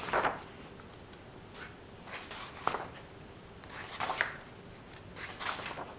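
Paper pages of a thick paperback book being turned by hand, in a few quick rustling swishes about a second or so apart.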